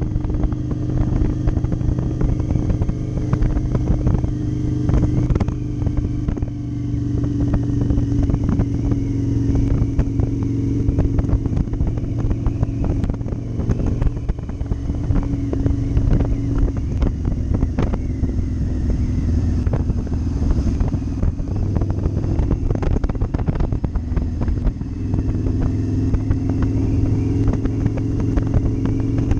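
Motorcycle engine running while being ridden at road speed; its note eases off and picks up a few times with the throttle and is stronger again near the end. Wind buffets the microphone throughout.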